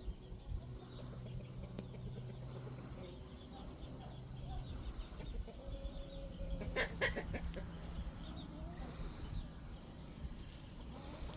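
Chickens clucking faintly, scattered short calls over a steady low hum.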